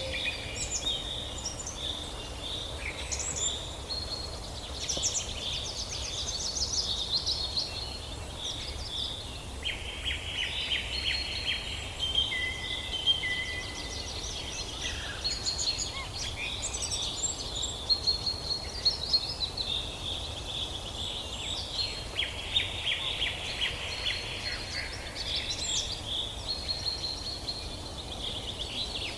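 Several songbirds chirping and trilling over one another in a steady chorus of quick repeated high notes and short whistles. A faint low rumble runs underneath.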